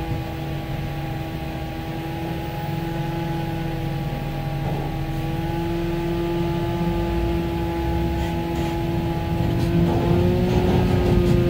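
Tractor-drawn aerial ladder truck driving, heard from the rear tiller cab: a low rumble with a steady drivetrain whine. Near the end the whine rises slightly in pitch and the sound grows louder as the truck picks up speed. The truck's transmission has just been rebuilt.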